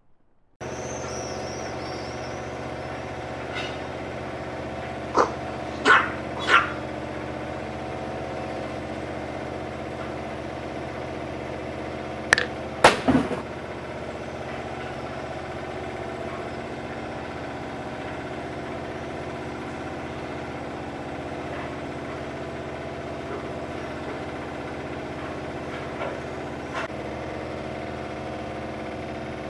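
Dog barking in short sharp barks: three in a row about five seconds in, two or three more around thirteen seconds, and two faint ones near the end. A steady droning hum of several held tones lies under them throughout.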